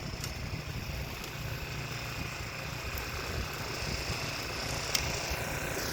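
Steady low rumble of a vehicle running, with a few faint clicks.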